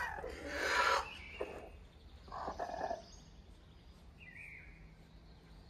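Chickens calling: a loud call about a second long at the start, a shorter one around two and a half seconds in, then faint bird chirps over a low outdoor background.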